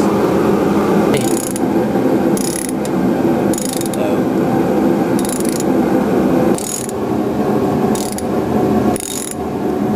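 Socket ratchet wrench on a long extension, being swung to back out a bolt. Its pawl clicks in about seven short bursts a little over a second apart, one per return stroke, over a steady background hum.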